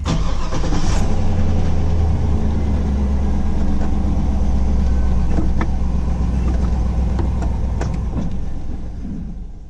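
Chevy Silverado pickup on a test drive, heard from inside: steady engine and road noise after a sudden start, fading near the end. This is the road test of a newly replaced front wheel hub bearing, and no bearing groan is noticed; the driver judges it sounds good.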